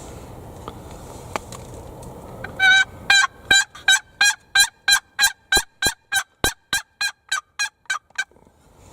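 Turkey yelps: a long, evenly paced run of about eighteen notes, three to four a second, starting a little under three seconds in and fading toward the end.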